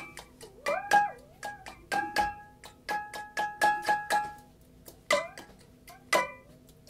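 Glass canning jar, partly filled with liquid, struck by hand and played as a percussion instrument: sharp hits, each ringing with a clear note that sometimes bends up and down in pitch. A quick run of hits about three seconds in, then two spaced hits near the end.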